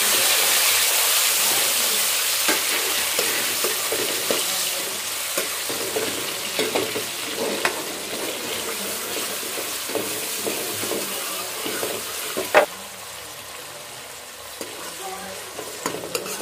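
Chopped tomatoes sizzling in hot oil with browned onions in an aluminium karahi as the tadka for kadhi fries, a metal ladle scraping and stirring them. The sizzle is loudest just as the tomatoes go in and dies down steadily, with a single sharp knock about twelve seconds in.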